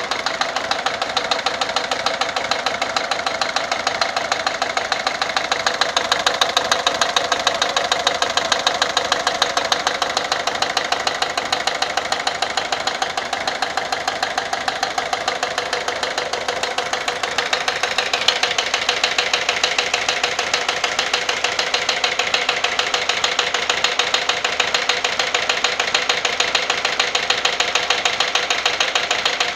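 Peugeot 407's 1.6 HDi four-cylinder turbodiesel idling with a fast, even knocking clatter: the abnormal engine noise being diagnosed. The clatter turns sharper about two-thirds of the way through.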